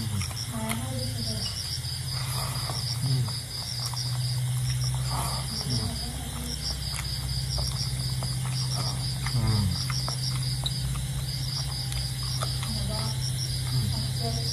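Crickets chirping in rapid high pulsed runs that stop and start again, over a steady low hum, with soft chewing and mouth sounds of eating by hand.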